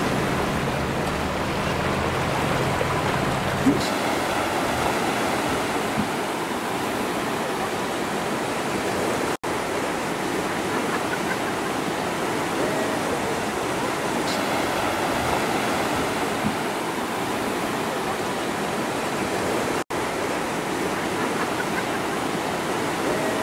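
Steady rushing of water from the downpour and floodwater, with a low hum under it for the first few seconds. The sound drops out sharply for an instant twice.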